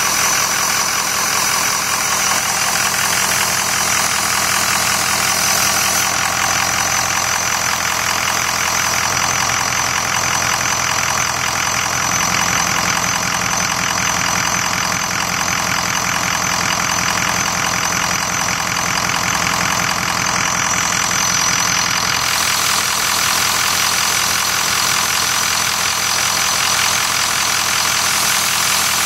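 Ford 6.0 Power Stroke V8 turbo-diesel idling, with a periodic whistle from the turbo. The owner found the cause to be the variable-geometry turbo oscillating, which is normal at idle on very early 6.0s.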